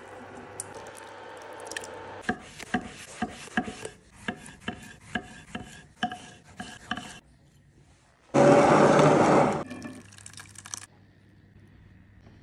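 A spoon stirring chopped tomatoes and peppers in a stainless steel saucepan, then a knife slicing a tomato on a wooden chopping board, about two cuts a second. About eight seconds in comes a loud rush of noise lasting about a second and a half.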